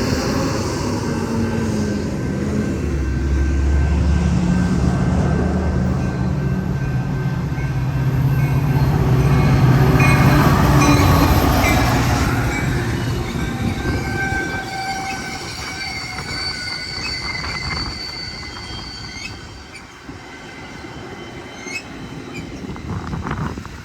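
Metra commuter train pulling into the station: diesel locomotive engine and the rumble of passing cars grow louder and then ease off, followed by steady high-pitched squealing from the wheels and brakes as the train slows to a stop.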